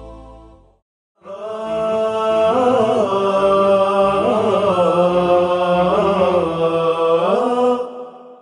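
Wordless chanted vocal music: a voice holds long notes that slide slowly from pitch to pitch, starting about a second in after the previous music fades out.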